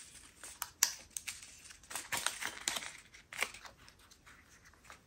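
Small plastic bags of diamond painting drills crinkling and rustling as they are handled and pushed into a box, with scattered light clicks.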